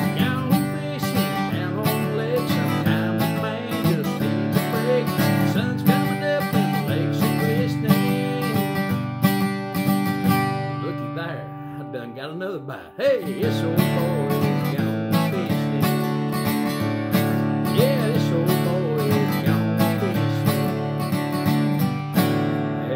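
Steel-string acoustic guitar strummed in a country song, with a man's voice singing over it. The strumming breaks off briefly about halfway through, and near the end the last chord rings out and fades.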